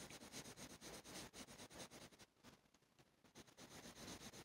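Colored pencil shading on paper, faint quick back-and-forth strokes scratching on the card; the strokes stop about two seconds in for about a second, then start again.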